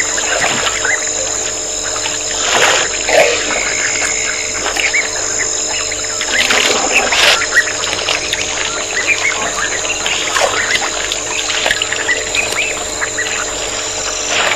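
Small birds chirping, with water splashing and trickling as elephants draw water up with their trunks and drink, over a steady hum.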